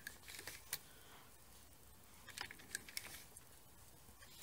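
Faint, irregular light clicks of the needles on an LK150 plastic-bed knitting machine being pushed by hand.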